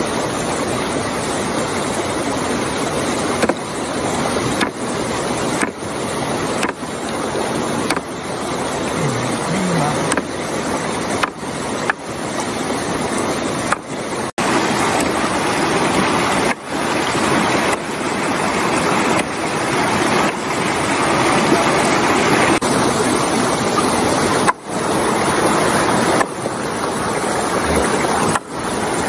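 Steady rush of water over the rocks of a shallow stream, with brief dips in level about once a second.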